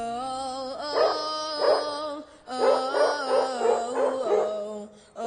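Several dogs howling together in chorus: two long howling phrases with a short break about two seconds in.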